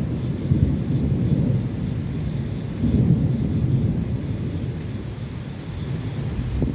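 Rolling thunder rumbling low and continuously, swelling about half a second in and again around three seconds, then slowly easing.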